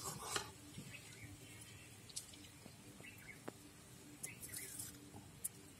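Faint outdoor ambience with small birds chirping now and then. A metal ladle scrapes against a steel kadai briefly at the start, and a few faint clicks follow.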